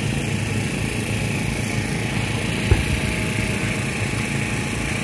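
Fireworks: a steady low rumble of shell bursts rolling on, with one sharp pop about two and a half seconds in.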